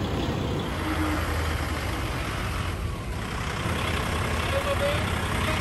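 Heavy-duty wrecker's diesel engine running steadily as it tows a semi tractor slowly across the lot.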